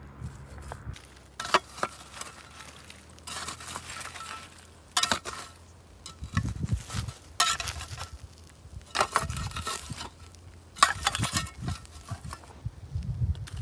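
Flat stones being set down one after another on charcoal embers around foil-wrapped food, clinking and scraping against each other and crunching the coals, about six times, with dull low thuds between.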